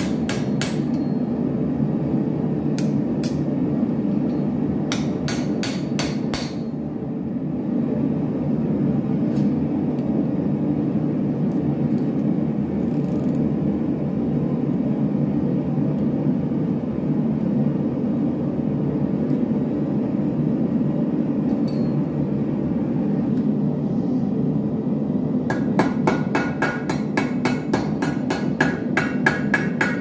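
Hand hammer striking a small steel buckle piece on an anvil: short clusters of sharp, ringing blows in the first six seconds, a long stretch with hardly any blows, then quick, even hammering of about four to five blows a second near the end. A steady low rumble runs underneath.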